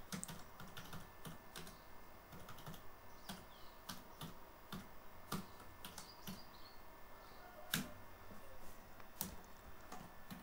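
Typing on a computer keyboard: a run of faint, irregular key clicks, with a few louder keystrokes about 5, 8 and 9 seconds in.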